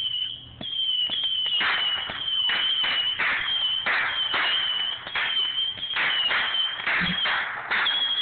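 Fireworks going off in rapid succession: a string of sharp bangs and crackling bursts, about two or three a second, under a continuous high-pitched whistle.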